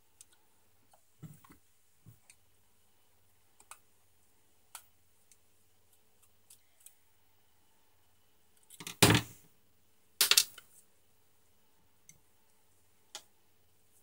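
Scattered small clicks and taps of a screwdriver and plastic parts as a vacuum cleaner's motor and housing are handled during disassembly, with two louder noises of about half a second each, about nine and ten seconds in.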